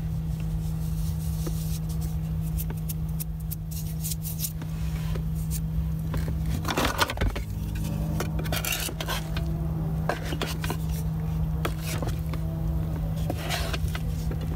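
A plastic spatula scraping and knocking against the nonstick pot of a Max Burton Stove To Go as risen bread dough is worked into a ball, in scattered clicks and scrapes, the loudest about seven seconds in. A steady low hum runs underneath.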